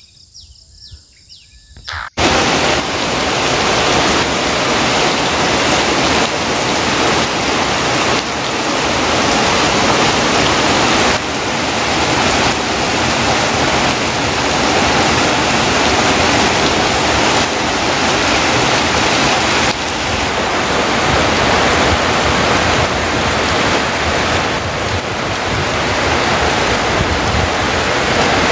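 Heavy tropical downpour: a loud, steady hiss of rain that starts abruptly about two seconds in, after a quiet moment with faint chirping.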